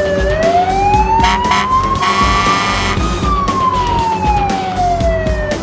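Fire-engine siren wailing, its pitch sliding slowly down, then up for about three seconds, then down again, over background music with a steady beat. A buzzy tone sounds for about a second, about two seconds in.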